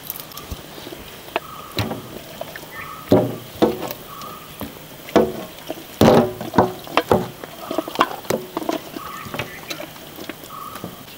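Raw chicken pieces tipped from a steel pot onto a large metal tray and mixed by hand with turmeric: irregular wet slaps and squelches, busiest in the middle.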